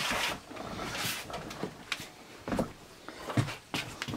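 A few light knocks and rustles, spaced irregularly, as things are handled near a steel cabinet.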